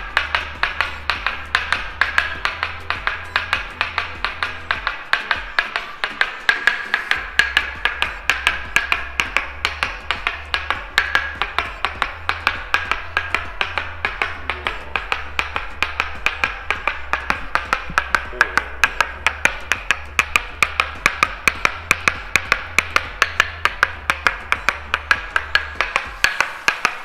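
Toksen massage: a wooden mallet tapping steadily on a wooden peg held against the back and shoulders, wood on wood at about three to four taps a second.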